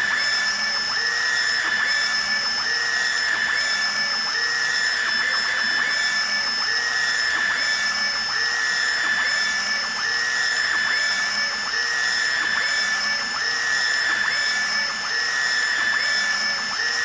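UV flatbed printer running: the print-head carriage shuttles back and forth, its motor whine stepping up and down in pitch about once a second over a steady high-pitched tone.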